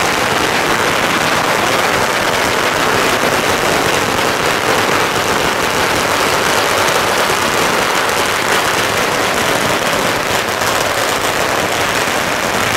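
A long string of Chinese firecrackers going off in one continuous rapid crackle of bangs, loud and unbroken.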